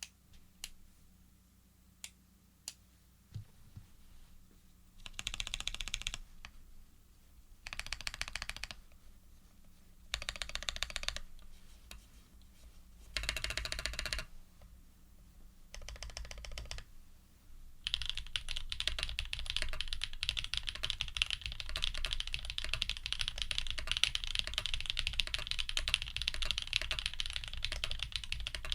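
Custom F1-8X mechanical keyboard with lubed Jade Black switches, an aluminium plate and PBT keycaps being typed on. It starts with a few single keystrokes, then comes in short bursts of rapid keystrokes, and settles into steady fast typing about two-thirds of the way in.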